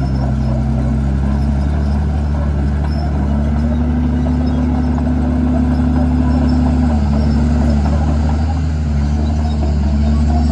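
Komatsu D51PX bulldozer's diesel engine running under load, its pitch rising and falling back several times, with a steady clatter over it.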